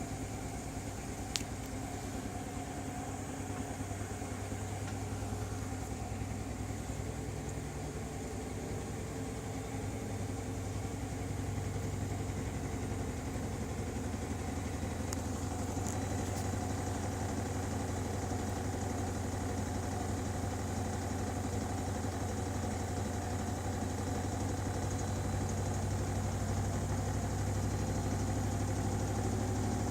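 A Bosch machine running steadily with a low hum and a fast, even knock: the knocking fault it has developed. There is one sharp click about a second in.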